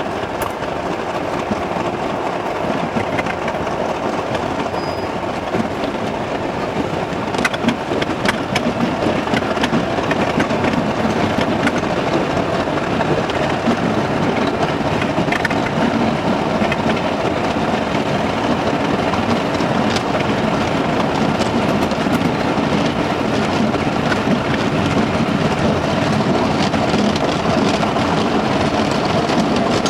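Diesel-hauled train running along the track: a steady rumble with occasional sharp clicks, growing a little louder about eight seconds in.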